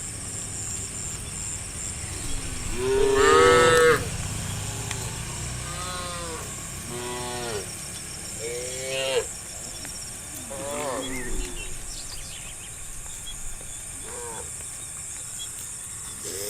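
Cows mooing: a series of about seven separate moos, the loudest about three seconds in, with shorter calls spaced through the rest.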